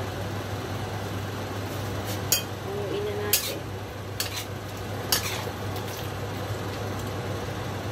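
A spatula clanks sharply against a wok several times from about two seconds in, as cabbage and pork are tossed in a stir-fry. Underneath runs a steady hiss of frying and a low hum.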